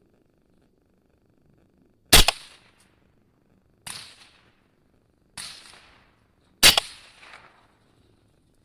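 Four rifle shots fired at a coyote, the first and last loud sharp cracks, two softer shots between them, each trailing off in a short echo.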